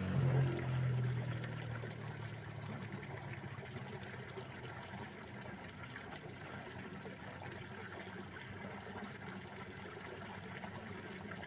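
Water flowing and trickling steadily in a small concrete-lined canal, an even rush, with a brief low hum in the first second or so.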